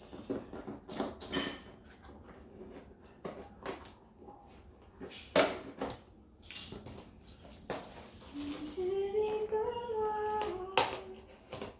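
Clicks, knocks and rustling as the parts of a clothes rack are unpacked and handled, with a woman's voice singing a few sliding notes about eight seconds in.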